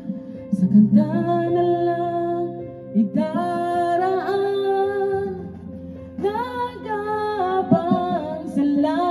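A woman singing a ballad into a handheld karaoke microphone over instrumental backing music with guitar. She sings three phrases with long held notes and short breaks between them.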